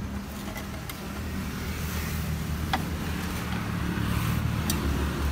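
Engine hum of passing road traffic, swelling a little toward the end, with a few light clicks as plastic cups are handled.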